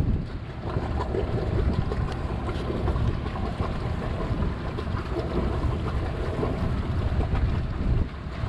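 Strong wind buffeting the microphone aboard a sailboat at sea, a steady rough rumble with the sea's wash beneath it.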